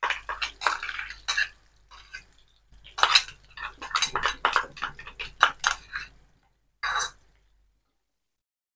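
A spoon scraping and knocking ground chutney paste out of a bowl into a frying pan: quick clinks and scrapes in two runs, with one more short scrape near the end.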